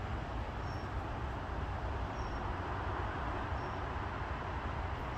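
Steady low rumbling background noise outdoors, with a faint short high chirp repeating about every second and a half.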